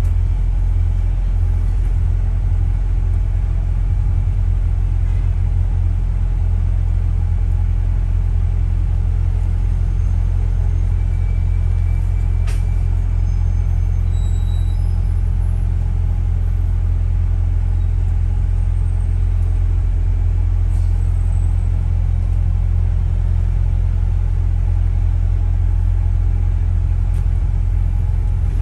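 Steady low rumble of a double-decker bus in motion, heard from inside on the upper deck.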